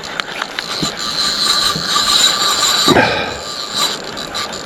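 Fishing reel's drag slipping with a steady buzzing whine as a hooked largemouth bass pulls line off the spool. The drag is set too loose.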